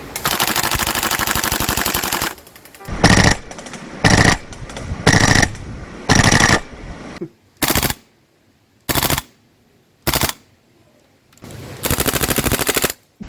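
CO2 gas blowback airsoft guns firing full-auto: a rapid burst of about two seconds, then about seven short bursts with gaps between them, and another burst of over a second near the end.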